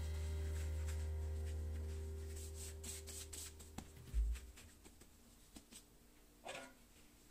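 A low note left over from background music dies away over the first few seconds, then faint rustling and light handling noises of plastic-gloved hands shaping bread dough on a silicone mat, with a dull thump about four seconds in.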